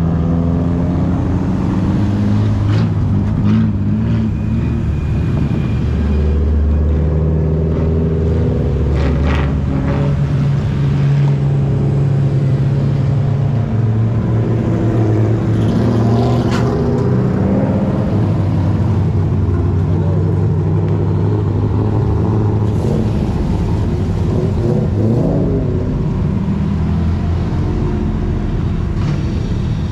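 Car engines running as a line of cars rolls slowly past one after another, with a few short revs that rise and fall.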